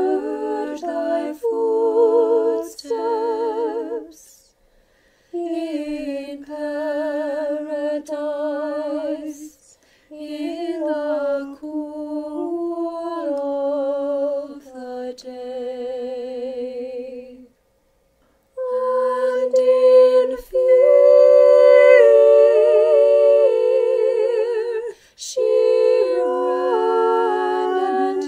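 Church choir singing Orthodox chant a cappella, several voices in harmony with vibrato. The phrases break off twice for a brief silence.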